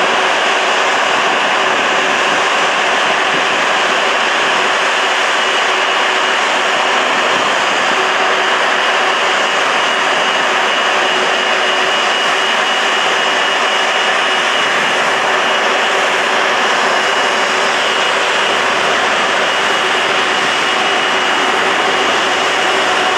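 Airbus A330-200's Rolls-Royce Trent 700 turbofan engines at idle while taxiing: a steady rushing noise with a steady high-pitched whine.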